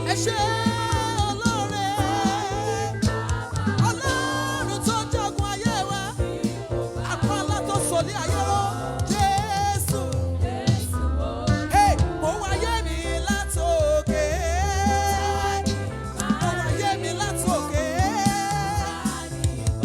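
Gospel worship music: a sung melody with vibrato over a steady bass line and drums.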